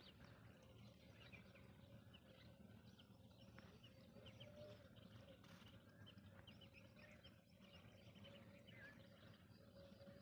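Near silence, with faint scattered bird chirps in the background and a faint steady hum.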